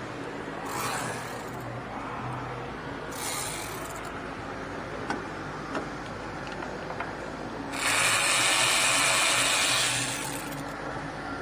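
Cordless power tool spinning the 8 mm nut off the starter's signal-wire terminal, running steadily for about two and a half seconds near the end, with two shorter whirs earlier.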